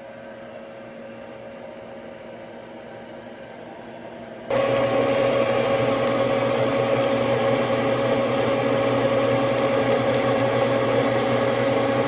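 Steady electric hum of an egg incubator's fan motor. About four and a half seconds in it gives way to a much louder steady machine hum at the same pitch.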